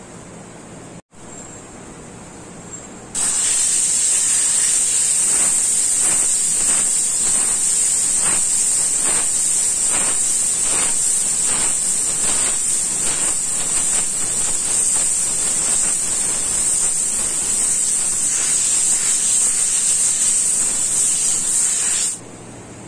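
Gravity-feed airbrush spraying paint: a loud, steady hiss of air that starts about three seconds in and stops shortly before the end.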